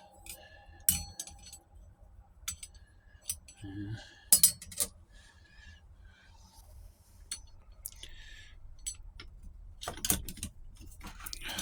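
Metal parts of a 4L60E transmission's forward clutch assembly clinking and clattering as they are handled and taken apart: scattered light clicks with a few louder metallic knocks, about a second in, around four and a half seconds and near ten seconds.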